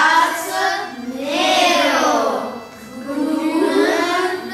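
A group of children singing a song together, in long phrases that swell and fade.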